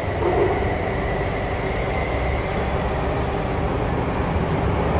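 Inside a C751B metro train car running through a tunnel: steady rumble of the wheels and running gear on the rails, with a faint steady high tone above it.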